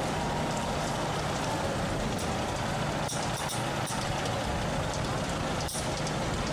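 Steady city traffic noise, with buses and cars running alongside, heard from a bicycle riding in the bike lane. A few faint clicks sound through it, the clearest near the end.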